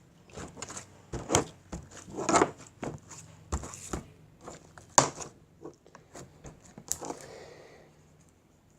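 Silly putty being squished and stretched by hand, making irregular sharp clicks, pops and crackles, which die away near the end.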